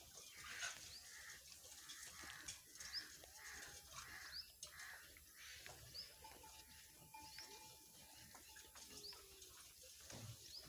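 Faint, even hiss of milk squirts as a cow is milked by hand, about two squirts a second, with birds chirping briefly now and then.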